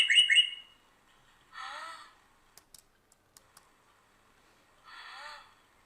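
A bird chirping sound effect plays back as a rapid run of repeated high chirps and stops about half a second in. A few faint computer mouse clicks follow near the middle, between two brief faint vocal sounds.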